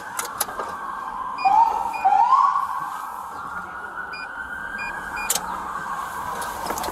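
Police car siren wailing slowly up and down, with two short rising whoops about a second and a half and two seconds in.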